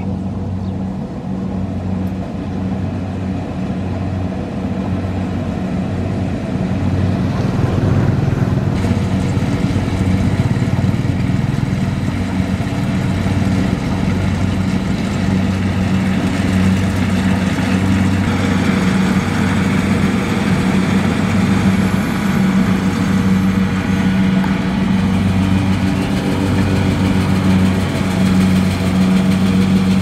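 Kubota DC-70 combine harvester running steadily while cutting rice, its engine drone growing louder over the first several seconds as it drives up close, with a rushing mechanical noise from the cutting and threshing gear building up in the second half.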